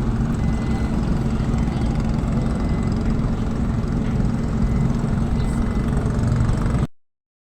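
An engine idling steadily with a low rumble. It cuts out abruptly to silence about seven seconds in.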